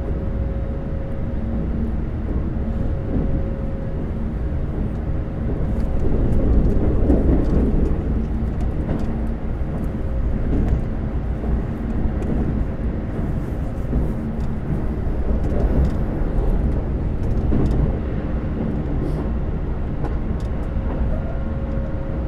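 Keikyu 2100-series electric train running at speed, heard from inside the passenger car: a steady rumble with a constant motor hum, growing louder twice, once about a quarter of the way in and again past the middle.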